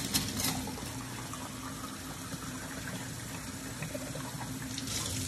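Kitchen faucet running steadily, the stream splashing into a drinking glass and a stainless steel sink as soap is rinsed off the glass.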